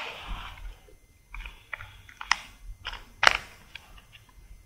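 Timing case being fitted onto a Perkins Phaser diesel engine block: a brief scraping, then a run of sharp metal clicks and knocks as the case is set against the block, the two loudest about two and three seconds in.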